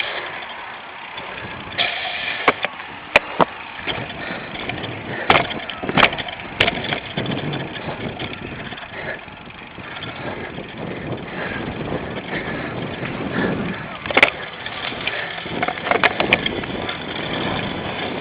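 Cyclocross bike ridden over rough ground: a steady rushing noise with scattered sharp knocks and clatters from the bike, in clusters, the loudest a few seconds in and again near the end.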